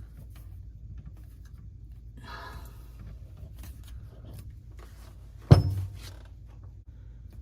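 Handling noise under a kitchen sink as the dishwasher drain hose is fitted onto the garbage disposal's inlet: a short rustling scrape, then one sharp knock about five and a half seconds in, over a low steady hum.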